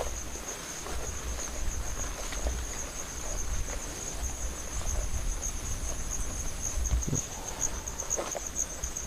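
Insects chirring steadily in a high, finely pulsing trill, a second fainter trill stopping about two-thirds of the way through, over a low rumble.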